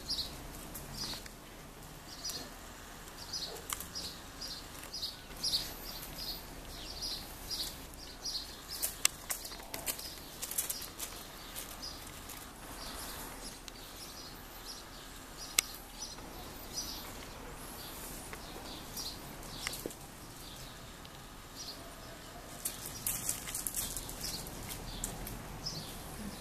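Akita puppies' paws scuffling and crunching over loose gravel, with runs of short high chirps and a few sharp clicks.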